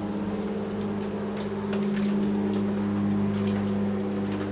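Steady hum of a large mass of Buckfast honeybees buzzing from an opened package, with a few faint clicks of handling.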